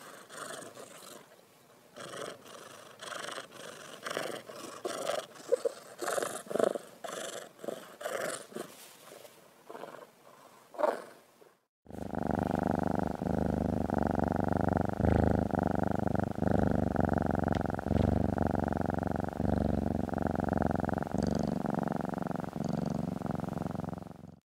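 Domestic cat purring: after a brief cut about halfway through, a close, loud, steady purr begins. Before it come quieter, irregular soft rustling and clicking sounds.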